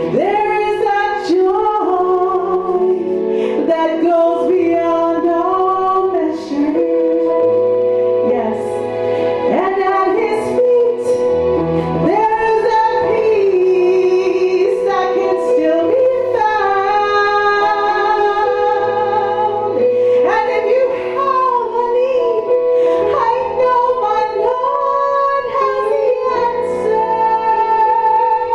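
A woman singing a worship song into a microphone, long held notes gliding up and down, over sustained electronic keyboard chords.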